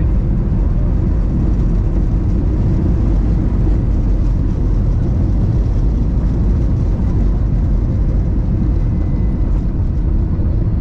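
Steady engine and airflow noise of an airliner heard from inside the passenger cabin: a constant deep rumble with a faint steady hum above it.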